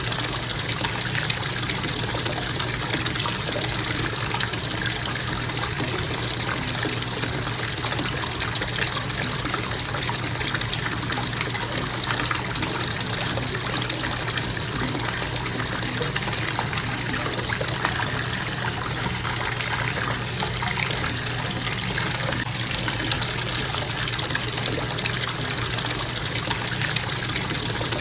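Bathtub faucet running in a steady, unbroken stream, water splashing into the tub.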